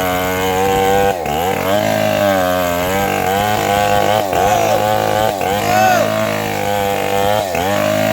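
Chainsaw engine running at high revs while cutting teak wood. Its pitch dips sharply and recovers about four times as the chain bites into the cut.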